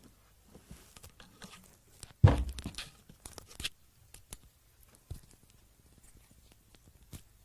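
A brief crackling rustle about two seconds in, lasting over a second, followed by a few faint clicks.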